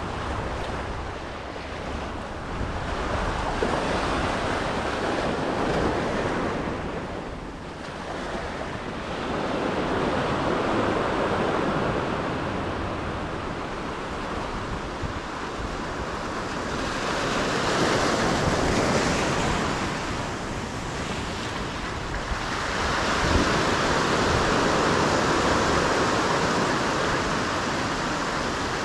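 Surf washing up a rocky shoreline, swelling and falling back about four times as each wave comes in.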